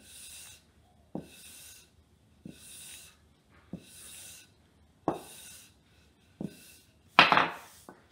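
A wooden rolling pin rolls out a thin sheet of dough on a kitchen countertop in six even strokes about a second and a quarter apart, each a soft knock followed by a brief rubbing hiss. Near the end comes a louder knock as the pin is set down on the counter.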